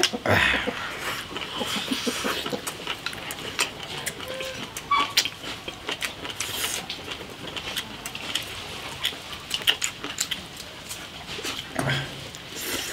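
Two people eating rice and stew close to the microphone, chewing with their mouths and tapping chopsticks against porcelain rice bowls in many small clicks.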